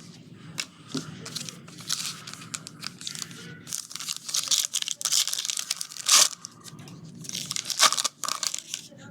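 Irregular crinkling and tearing of a trading-card pack's wrapper, with cards being handled, in several short rustles. The sharpest crackles come about six and eight seconds in.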